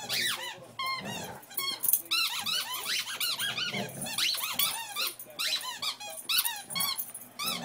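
Two dogs playing over a ball, with a long run of high-pitched squeaks, each rising and falling, coming several a second with hardly a break.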